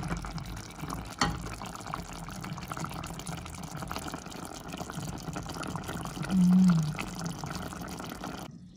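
A pan of salmon paksiw bubbling and crackling as its vinegar-and-oil broth boils down almost dry. There is a single click about a second in and a short low hum, like a voice, a little past six seconds. The sound cuts off suddenly near the end.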